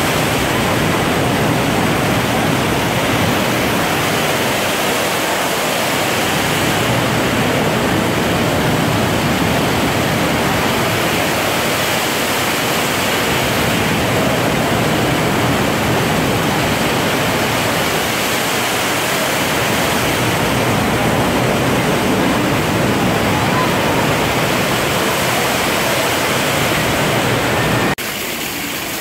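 Steady rush and splash of a large indoor fountain, the Rain Oculus, whose water pours two storeys from a ceiling bowl into a pool below. The sound drops in level suddenly about a second before the end.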